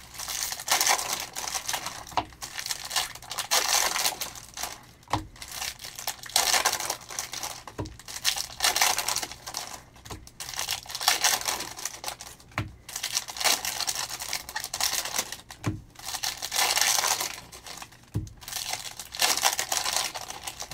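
Foil wrappers of Panini Optic football card packs crinkling and tearing as the packs are ripped open one after another, in bursts every couple of seconds. A short low knock comes every two to three seconds.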